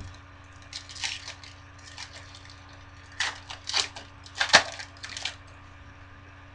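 Foil wrapper of a Bowman Chrome trading-card pack crinkling and tearing open in a run of short, crisp rustles, loudest between about three and five seconds in.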